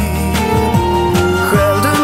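Background music: a song with sustained notes, a bass line and a steady beat.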